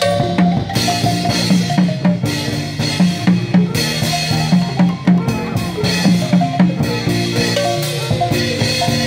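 Marimba band with a drum kit playing a lively tune: wooden marimba bars struck with mallets in a quick, repeating pattern of low notes, with drums and cymbals keeping the beat.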